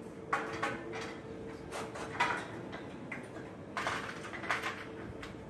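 Intermittent knocks and clatters of tools and building materials during work on a wooden railing, about six short hits, over a faint steady hum.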